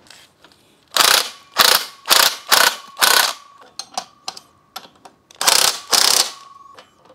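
A ratchet clicking in short repeated strokes as bolts are tightened: about five quick strokes, lighter clicks in the middle, and two more strokes near the end.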